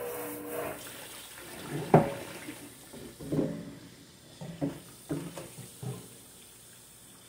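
Cold tap water running into a kitchen sink while ceramic pottery is rinsed, with a sharp knock about two seconds in and several shorter ringing clinks of the pottery after it. The running water eases off toward the end.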